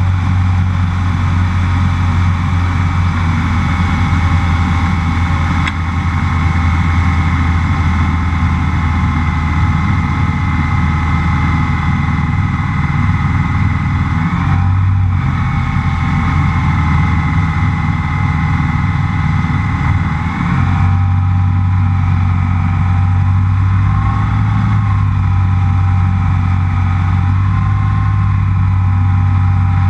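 Rotax 912 flat-four engine and propeller of a Rans S7S light plane running steadily in flight, a loud, even drone. The pitch dips briefly about halfway through and again a few seconds later, then wavers slightly near the end.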